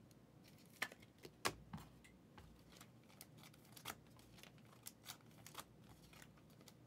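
Faint scattered clicks and light rustling of trading cards and a plastic card holder being handled, the sharpest clicks about a second in and again about half a second later.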